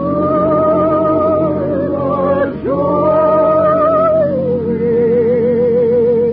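A lullaby sung with orchestra on an old radio broadcast recording: long high held notes with vibrato, broken briefly about two and a half seconds in, then gliding down to a lower held note. The sound is dull, with no top end.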